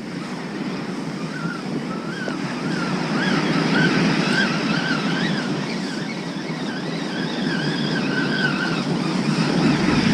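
Surf breaking and washing up a sandy beach, swelling about four seconds in and again near the end, while a spinning reel is cranked to retrieve a heavy line with a fish on it. A wavering high tone runs through the middle.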